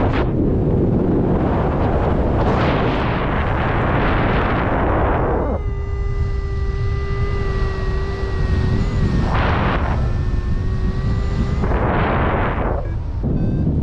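Strong wind buffeting the microphone in loud, rumbling gusts. An unidentified steady pitched tone sounds for about six seconds in the middle.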